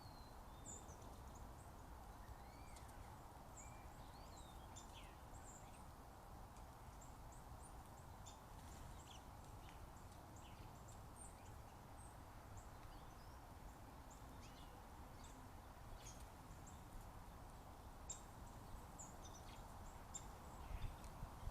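Small birds chirping and calling in short, high notes over a steady background hum, with a few light taps near the end.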